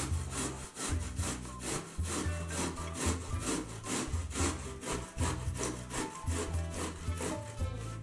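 Zucchini grated on the coarse side of a stainless steel box grater: a rhythmic rasping scrape, about two strokes a second.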